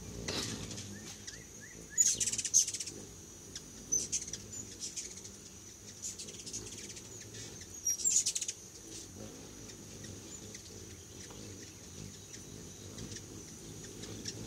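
Hummingbirds chattering: two bursts of rapid, high-pitched chips, about two seconds in and about eight seconds in, with scattered single chips between.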